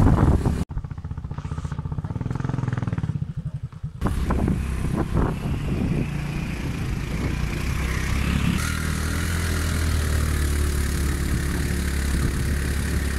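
Motor scooter engine running as it rides over a rough dirt track, with road noise. Its firing pulses are distinct during the first few seconds, and after about four seconds it settles into a steadier drone.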